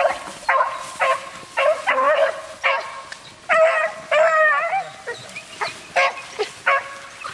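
Beagles baying: about ten short, pitched howling barks in an irregular series, a couple of them drawn out and wavering near the middle.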